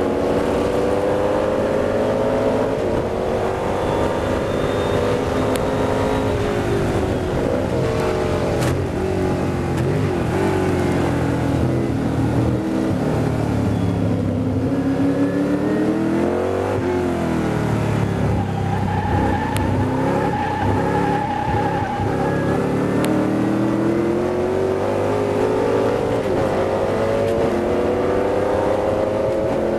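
McLaren M1B sports-racing car's V8 engine heard from the cockpit at racing speed. The engine note falls as the car slows to under 60 mph for a corner, then climbs steadily as it accelerates back past 100 mph.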